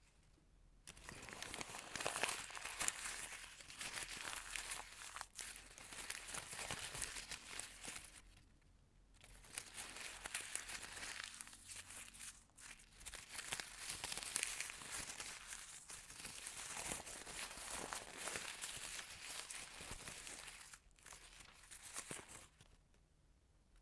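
Paper being crumpled and torn by hand: long stretches of dense crinkling and ripping, with a short pause about eight seconds in. It tails off after about twenty seconds.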